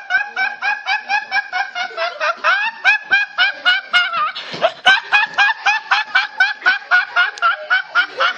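A teenage boy laughing uncontrollably: a long run of rapid, high-pitched laughs, about five a second, with a brief catch of breath about halfway through.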